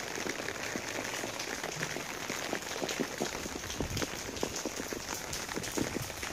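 Heavy rain falling on wet stone paving: a steady hiss dotted with many small drop ticks, with a few low thumps from about four seconds in.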